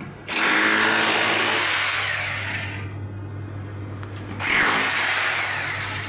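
Handheld power tool running in two bursts, the first about two and a half seconds long and the second about a second and a half, starting about four seconds in, over a steady low hum.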